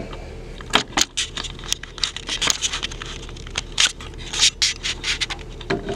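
Irregular scraping and rustling with scattered sharp clicks, over a faint steady low hum.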